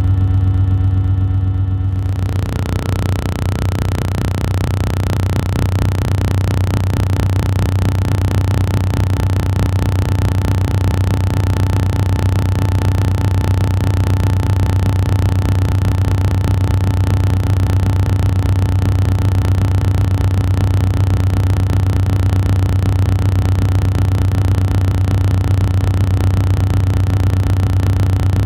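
Steady low droning hum, joined about two seconds in by a loud even hiss that carries on with it.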